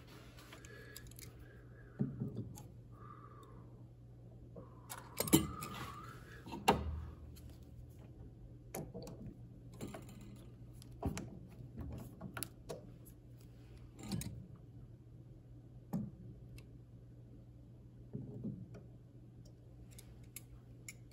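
Scattered light clicks, taps and knocks of hand work: a metal screw being turned in by hand into a wooden block and tools being handled against it, the loudest knocks about five and seven seconds in. A low steady hum lies underneath.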